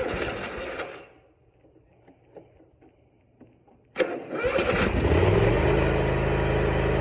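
A short burst of noise near the start, then, about four seconds in, a Toro TimeCutter mower's engine is cranked by the starter on a freshly fitted battery. It catches within about a second and runs steadily, showing that a battery that tested bad was behind the clicking no-start.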